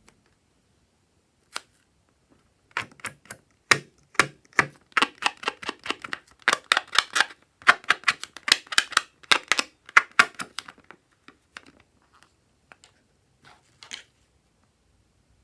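Slime being squeezed and worked by hand: a fast run of sticky clicks and crackles as air pockets pop. They come thickest through the middle and thin out to a few scattered clicks near the end.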